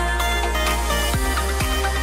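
Electronic dance music with a heavy bass line and a steady beat; kick-drum hits come in about a second in.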